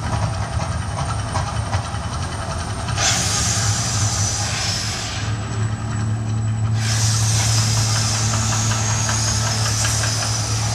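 Mirage Volcano's eruption effects hissing in two long blasts, the first about three seconds in for a couple of seconds, the second starting about seven seconds in and still going at the end, over a steady low hum.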